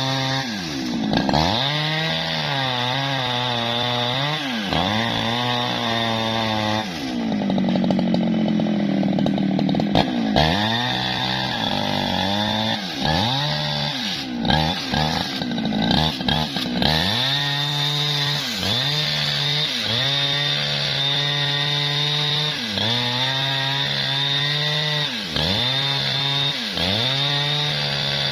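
Jonsered two-stroke chainsaw ripping lengthwise through tough bendo wood. Its engine pitch dips again and again as the chain bogs in the cut and then climbs back, with a longer stretch under heavy load about a quarter of the way in.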